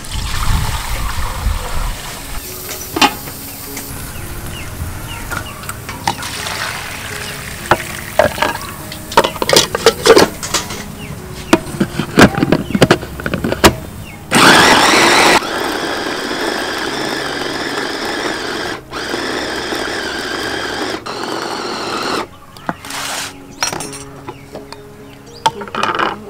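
Scattered clinks and knocks of kitchenware. Then a small electric food chopper starts with a loud burst about fourteen seconds in and runs steadily for about seven seconds, mincing meat, before cutting off. Background music plays underneath.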